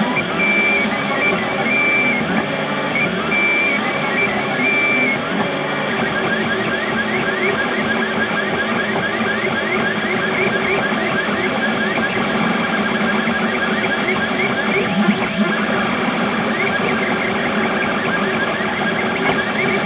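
XYZ da Vinci Mini W+ 3D printer's stepper motors whining as the print head moves, with short high notes in the first five seconds, then a long run of quick rising chirps.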